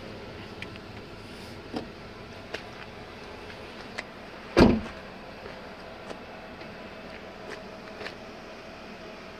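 A single heavy slam about halfway through as the 2014 Jeep Wrangler Unlimited's rear gate is shut, with a few light clicks and knocks of handling before it.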